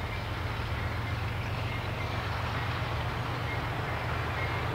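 An EMD SD50-2 and SD40-2 pair of diesel-electric freight locomotives passing close by, their engines a steady low rumble over the noise of wheels on the rails.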